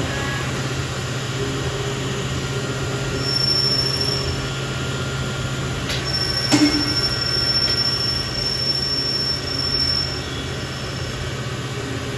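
Machinery running with a steady low hum and a high-pitched whine that comes in briefly about three seconds in and again from about six and a half to ten seconds. Two sharp clicks come just before the second whine.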